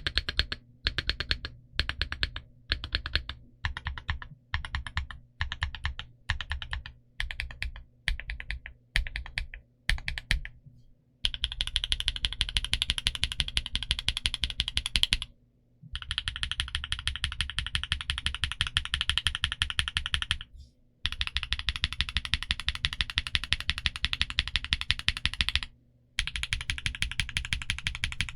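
Typing on a Portico68 mechanical keyboard with Gateron Green Apple heavy tactile switches and Cherry-profile PBT keycaps. For the first ten seconds or so it comes in short bursts of a few keystrokes about once a second, then turns into continuous fast typing broken by three brief pauses.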